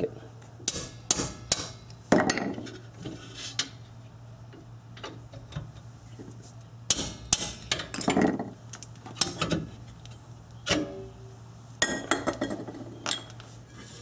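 Hand wrench and steel brake caliper bracket clinking and clanking in scattered bursts as the rear bracket's bolts are undone and the bracket is taken off the rotor, over a faint steady hum.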